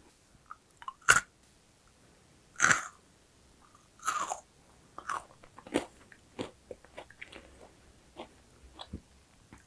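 A crisp macaron shell bitten and chewed close to the microphone: a sharp crunch about a second in, two more crunchy bites, then softer crackling chews.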